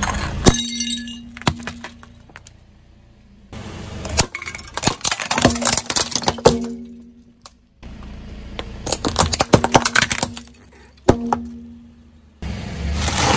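Car tyre rolling over brittle objects and crushing them: three separate runs of cracking and shattering, with clinking shards and a short ringing after some of the breaks.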